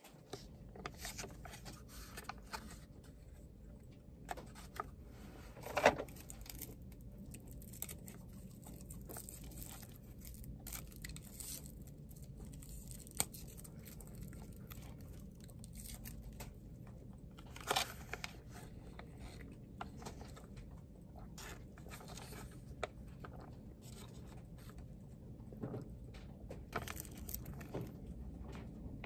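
Irregular crinkling and tearing from something being handled, with scattered light clicks and taps and a sharper knock about six seconds in.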